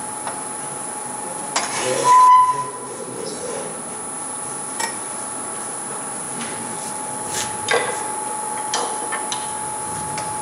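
Wood lathe running with a steady whine while a turning tool takes short, intermittent cuts on the spinning wooden goblet. The loudest cut comes about two seconds in, with smaller ones scattered through the rest.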